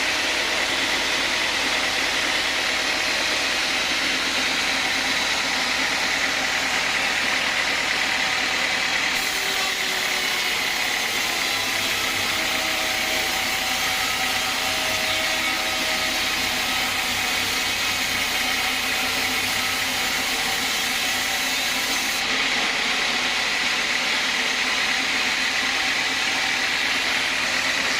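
Sawmill band saw running steadily with a loud, even mechanical noise; from about a third of the way in until near the end a brighter, hissier edge is added, then drops away.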